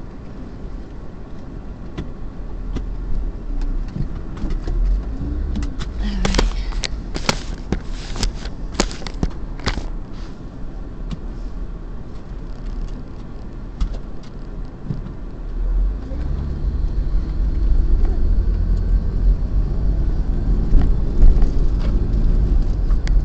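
Car driving, heard from inside the cabin: a steady low rumble of engine and road that grows louder over the last third. A cluster of sharp clicks and knocks comes about a third of the way in.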